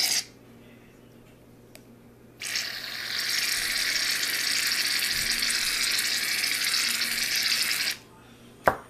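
Aerosol can of Barbasol shaving cream hissing as it sprays foam: the first spray stops just after the start, then a long steady spray runs from about two and a half seconds in to about eight seconds in. A single sharp click comes near the end.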